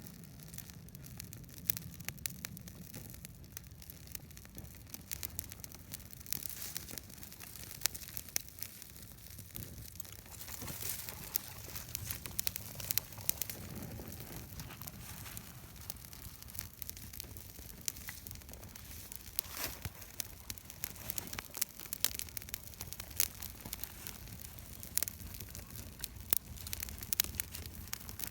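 Wood campfire crackling: irregular sharp snaps and pops over a low, steady rumble.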